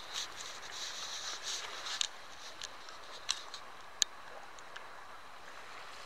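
Calm lagoon water lapping softly at a pebble shore, a steady hiss with a few sharp clicks about two, three and four seconds in.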